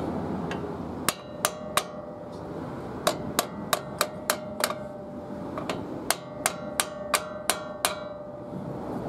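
Mallet blows on the front brake rotor and hub of a 1993 Ford F-150 4x4, knocking the rotor loose. The blows come in three quick runs of about three a second, and a metallic ringing tone hangs on between them.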